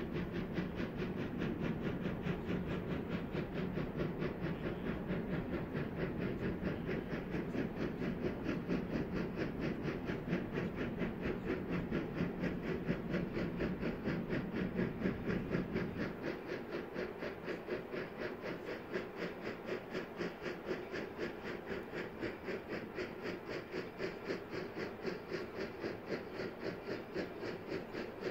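Polson Logging Co. No. 70, a 2-8-2 Mikado steam locomotive, working hard under steam with an even, rhythmic exhaust beat from the stack (stack talk). A deeper rumble underneath drops away about halfway through, leaving the exhaust beats on their own.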